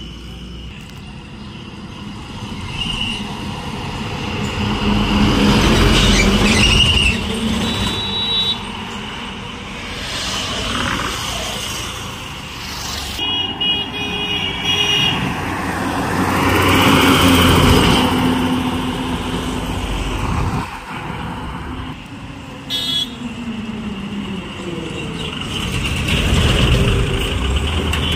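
Heavy trucks and other road vehicles passing close by one after another, each engine and tyre noise swelling and fading, with several short horn honks in between.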